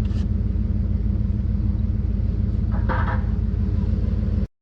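Engine idling with a steady, deep, evenly pulsing rumble.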